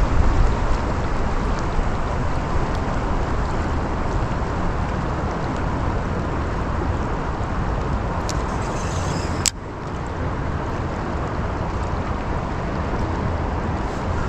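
River water rushing steadily, with a heavy low rumble. One sharp click about nine and a half seconds in, after which the noise is slightly quieter.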